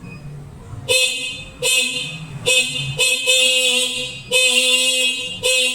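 Varilux Pro electric bicycle horn sounding in a series of short, uneven blasts, starting about a second in, as two bared horn-switch wires are touched together by hand. Each blast is a steady tone that cuts in and out with the contact. The horn sounding confirms these two wires are the horn circuit.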